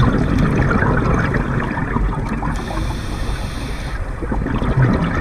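Scuba diver breathing through a regulator, heard underwater: exhaled bubbles gurgling and crackling, broken about halfway through by a short hissing inhale, then bubbles again.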